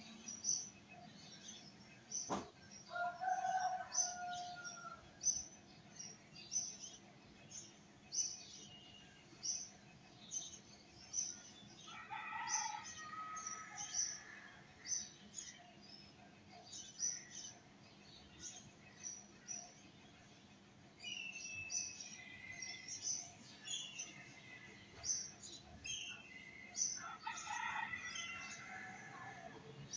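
Birds chirping throughout: many short, high chirps, with several longer calls now and then. A single sharp click about two seconds in.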